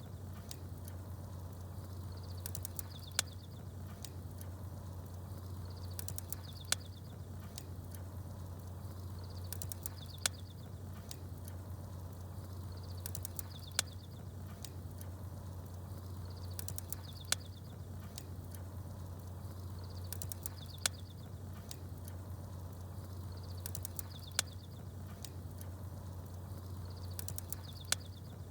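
Bonfire crackling with one sharp pop about every three and a half seconds, and small birds chirping in short high bursts on the same regular cycle. Under it runs a steady low hum.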